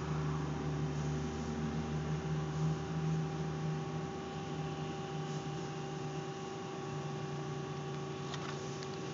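Steady machine hum made of several constant tones over a hiss, a little louder for the first few seconds, with a faint click near the end.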